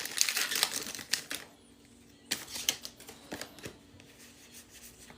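Foil booster pack wrapper crinkling as it is torn open for about the first second and a half, then a few sharp clicks and taps as the cards are handled.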